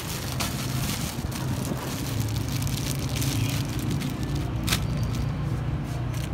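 Food crackling and sizzling on a hot grill, with many small pops that thin out near the end, over a steady low hum.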